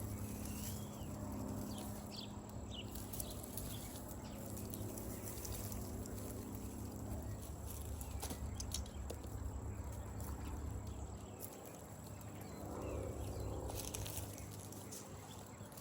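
Outdoor garden sound: a steady low rumble of wind on the microphone, with scattered light crackling and a few faint bird chirps in the first few seconds.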